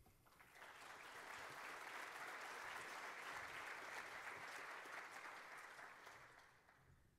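Audience applauding. The clapping builds over the first second, holds steady, then dies away near the end.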